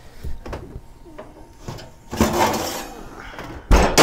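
Light clicks and knocks of an oven and a metal baking sheet being handled, with a sudden louder clatter near the end as the sheet of toast comes out from under the broiler.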